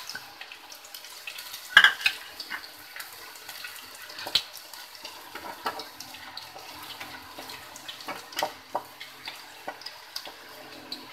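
Chopped garlic sizzling in hot oil in an aluminium pan, with a wooden spatula stirring, scraping and knocking against the pan every second or two. The loudest knock comes about two seconds in.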